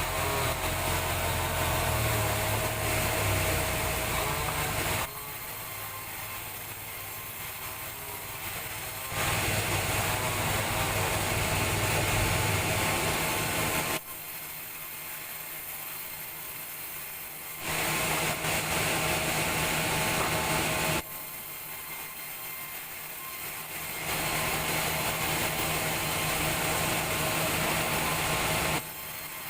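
Sawmill saw running and cutting timber into boards, a steady mechanical noise that switches suddenly between louder and quieter stretches several times.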